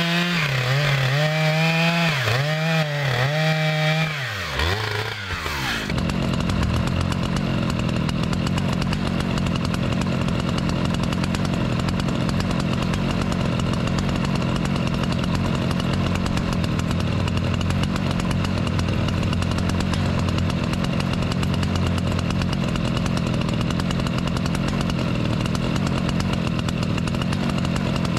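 Stihl MS 881 Magnum chainsaw cutting through a red oak log, its engine revving up and down under load for about five seconds before dropping away. After that a steady engine sound runs on without change.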